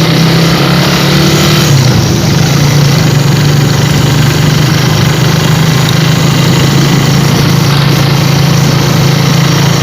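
A vehicle engine running at a steady speed while on the move: a constant low drone over an even hiss, with no change in pitch.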